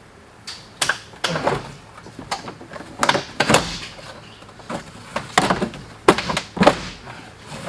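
Car floor carpet being cut loose with a knife and tugged free: an irregular run of knocks, scrapes and rustling, a few sharper pulls standing out.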